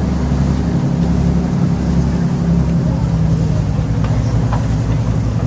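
Boat engine running steadily with a low hum, taking on a fast, even pulsing from about halfway through.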